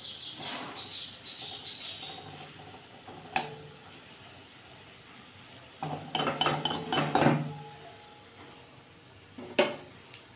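A metal spoon scraping and knocking against a metal kadai while turning pakoras frying in hot oil, with the oil sizzling underneath. There is one knock about three seconds in, then a quick run of clinks and scrapes from about six to seven and a half seconds in, the loudest part, and a last knock near the end.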